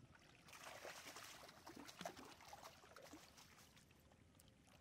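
Faint splashing and trickling of shallow water as a drag net is hauled through it by hand, busiest for a couple of seconds after the start and then tapering off.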